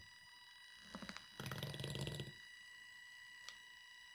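Small battery-powered motor of a cordless mini whisk running with a steady high whine, its spiral whisk head spinning in egg whites beaten to stiff foam. A louder rattling stretch comes about one to two seconds in.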